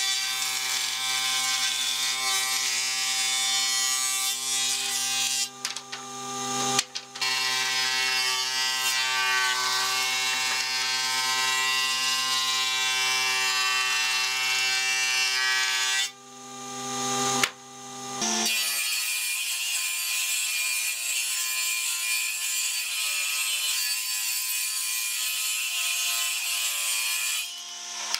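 Electric thickness planer running and planing pallet boards, a steady motor hum under a bright hiss of cutting. The sound cuts out briefly twice. About two-thirds of the way through it changes to a different steady machine sound with less low hum.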